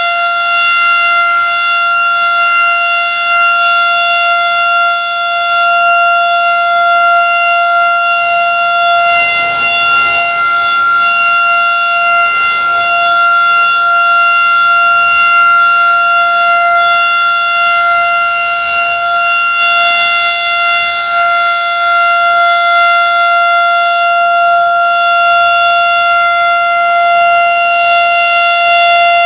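Federal Signal STH-10 10-horsepower outdoor warning siren sounding a loud, steady tone at full pitch during its monthly test.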